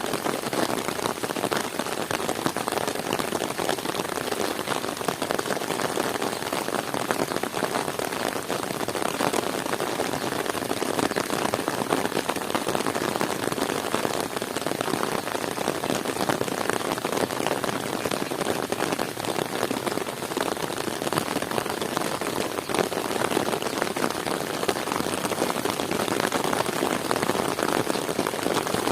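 Heavy rain falling steadily: a dense, even patter of countless drops striking surfaces, with no letup.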